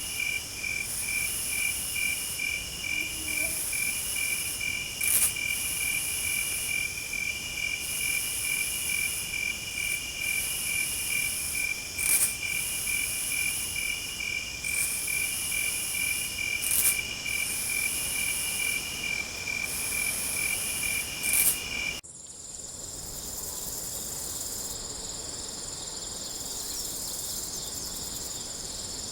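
Insects chirping in chorus: a steady, rapidly pulsing trill with higher buzzing calls coming and going, and a few sharp clicks. About three-quarters of the way through it cuts abruptly to a quieter, steadier high insect drone.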